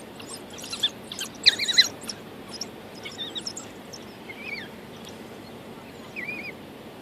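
African wild dogs twittering at a feed: short, high chirping calls, several in quick succession in the first two seconds, then a few scattered ones.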